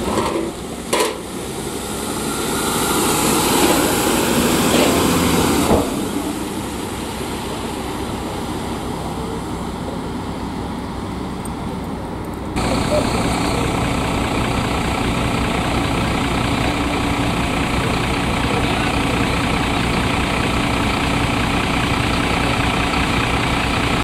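An ambulance van driving past, its engine and tyre noise rising and then cutting off sharply about six seconds in. Later a vehicle engine idles steadily, stepping up louder about halfway through.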